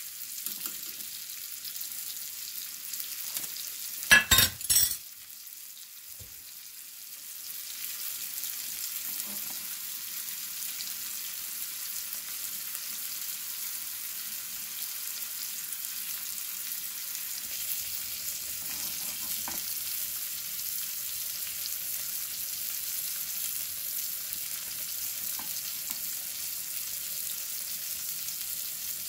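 Rib eye steak and onions sizzling in a small nonstick frying pan over a gas flame, a steady high hiss of fat frying. About four seconds in there is a brief loud clatter of the chopsticks knocking against the pan, and the sizzle grows louder from about seven seconds on.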